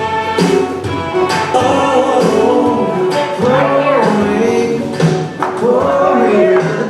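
Country song playing, with a steady beat and a melody line that bends in pitch.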